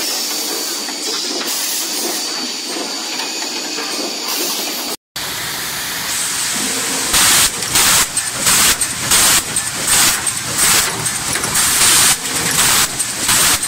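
Maxcut CS15 HS high-speed optimizing cross-cut saw running: steady machine noise with a couple of thin high tones, then, after a cut in the sound, short loud bursts of hiss that repeat roughly every half second as the machine works through its cycle of feed stops, starts and cuts.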